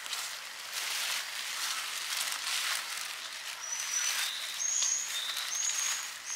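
Footsteps scuffing over wet, muddy ground, and from a little past halfway a small bird calling in short, high, level whistles that alternate between two pitches.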